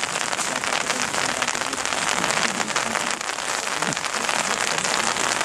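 Steady rain falling, with many small ticks of drops hitting a surface close by.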